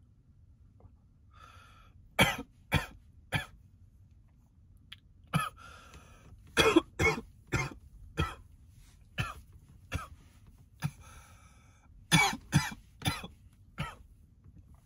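A man coughing hard in fits: a short breath in, three coughs, a longer run of about nine, then four more near the end. It is a smoker's coughing fit from inhaling cannabis smoke in a closet hotbox.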